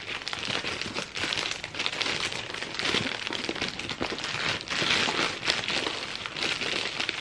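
White plastic mailer bag crinkling and rustling as it is torn open and pulled off a box inside, with many small crackles.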